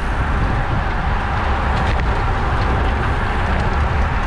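Steady wind rumble on the microphone of a road bike riding at about 23 mph in a racing bunch, with tyre noise from the asphalt.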